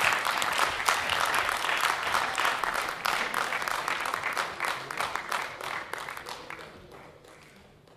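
Audience applause: many hands clapping, dying away over the last few seconds.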